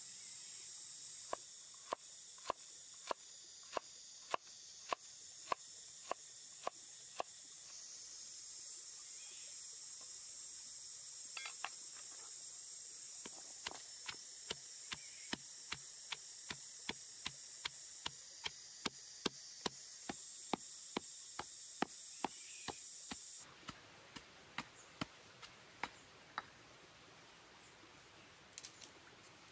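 Stone pestle pounding chopped ginger, carrot and herbs in a stone mortar: sharp knocks at a steady pace of about two a second, with a pause around nine to twelve seconds in and sparser strokes near the end. Insects drone high-pitched and steady behind it, cutting off abruptly about 23 seconds in.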